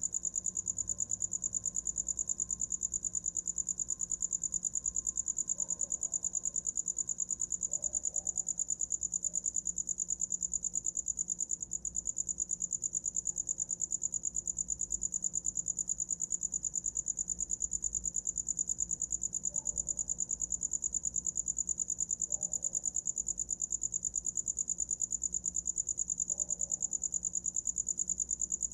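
A cricket chirping continuously in a fast, even pulse on a single high note.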